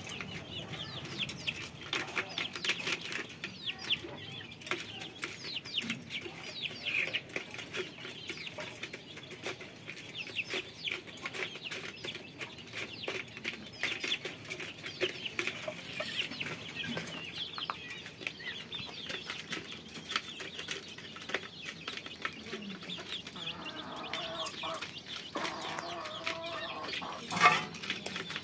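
Young chickens peeping over and over while they peck grain from a plastic feeder tray, with many quick pecking taps throughout. A single sharp, louder knock comes near the end.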